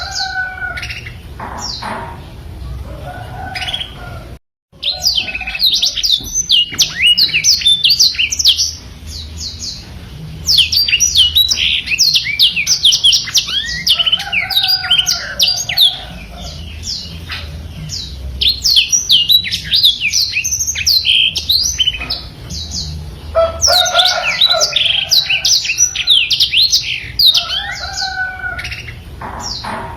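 Black-throated canary singing a long, fast run of quick sweeping chirps and trills, with a brief break about four seconds in.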